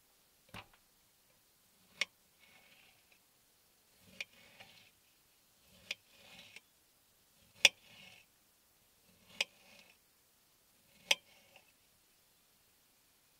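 Water drops falling from the trees onto the car in a slow, regular drip: seven sharp taps about every second and a half to two seconds, each followed by a brief soft splash.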